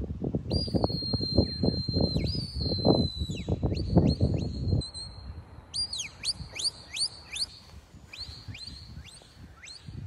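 A shepherd's whistle giving commands to a working sheepdog. First come two long, steady high whistles, each stepping sharply up and down in pitch. Later comes a quick run of about six short falling notes, then a few more. Wind buffets the microphone in gusts through the first half.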